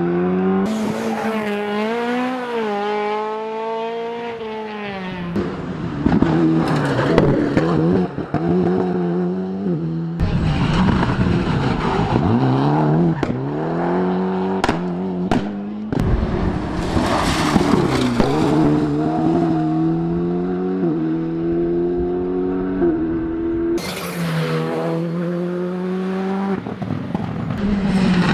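Rally cars on a closed tarmac stage driving past one after another, engines revving hard, their pitch climbing and dropping back through gear changes, with several loud rushes of noise as cars go by.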